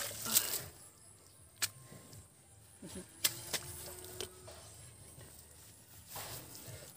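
A hoe blade chopping into wet mud at the start, then a mostly quiet stretch with a few short sharp clicks while hands dig through the mud.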